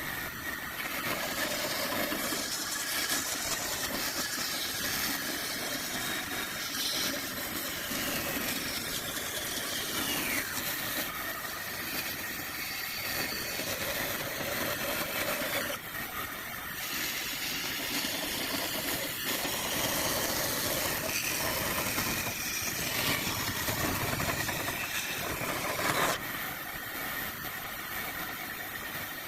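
A motor-driven woodworking power tool running steadily, with small shifts in level as it works the wood.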